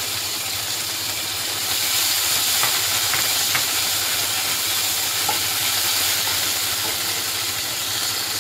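Hot oil sizzling steadily in a wok as chopped ginger, green chillies and fresh coriander fry, with a wooden spatula stirring through them and making a few light clicks against the pan.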